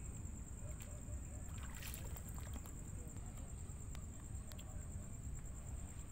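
Feet wading through shallow water with soft sloshing as scoop nets are moved through it, with a few light clicks, over a steady high-pitched insect trill and a low rumble.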